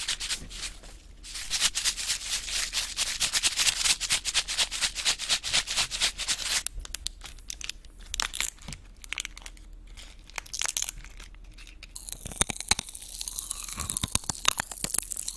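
Plastic candy wrapper crinkled and torn open close to the microphone: a dense rustle for about five seconds, then sparser crinkles. Near the end come mouth sounds of the sweet being eaten at the mic.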